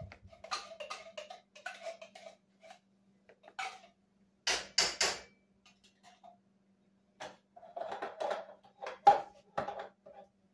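Metal utensil scraping and knocking against soup cans and a pot while condensed soup is emptied out, with three sharp knocks in quick succession about four and a half seconds in and the loudest knock near the end.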